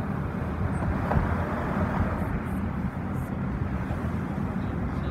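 Steady low engine rumble with a constant hum.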